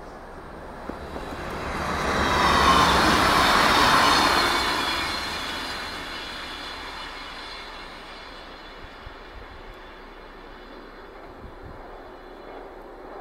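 Passenger train passing at speed over snow-covered track: it swells to a loud peak a few seconds in, then fades as it runs away into the distance, a thin high whine lingering after the rush of the pass.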